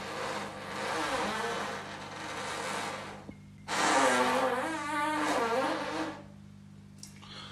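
A person farting: a long, rough, breathy fart, then after a short pause a louder, buzzing fart that wavers in pitch for about two seconds.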